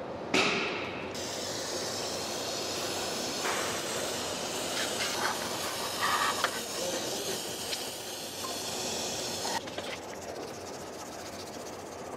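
Aerosol cleaner spraying in a long, steady hiss onto carbon-fouled turbocharger parts, starting about a second in and stopping shortly before the end. A few short knocks of the parts being handled come in between.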